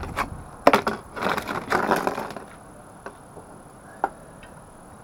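Hand tools and parts being handled on a motorcycle during an oil change: a few sharp metal clicks and knocks, about a second of scraping and rustling, then two faint single clicks.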